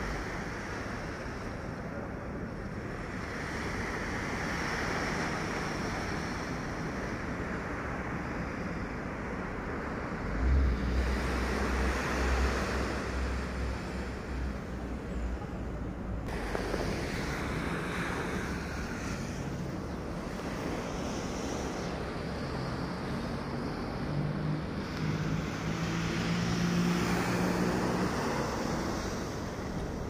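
Small sea waves washing on a sandy shore, a steady surging hiss that swells and eases. Wind buffets the microphone, most heavily from about ten to sixteen seconds in.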